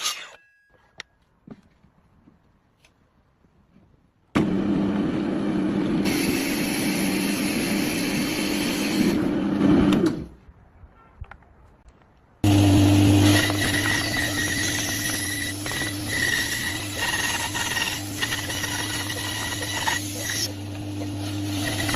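A woodworking power tool running in two long spells, the first about six seconds long and the second starting about halfway through. The second spell has a steady low hum and a high whine over the noise of cutting. Between the spells and at the start there are near-silent pauses with a few faint clicks.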